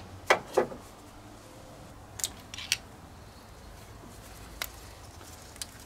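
Sharp clicks of the accelerator cable's end nipple and the throttle linkage being worked apart by hand. Two loud clicks come just after the start, two more about two seconds in, and faint ticks near the end, over a low steady hum.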